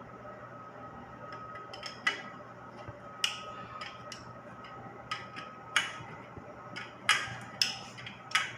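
Sharp metallic clicks and clinks of hand tools working the bolts of a water heater's circulating pump, coming at irregular intervals, about seven in all, louder in the second half. A steady low hum runs underneath.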